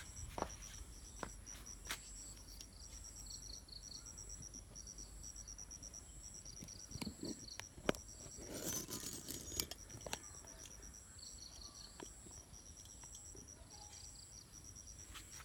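Insects chirping in rapid repeated pulse trains over a faint steady high tone, with scattered sharp clicks and a brief louder rustling burst about nine seconds in.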